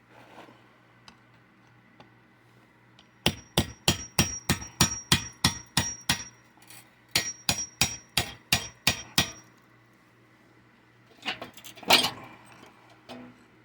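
Hammer blows on metal: two quick runs of about ten and eight strikes, roughly three a second, each with a faint metallic ring. A louder clatter of handling follows near the end.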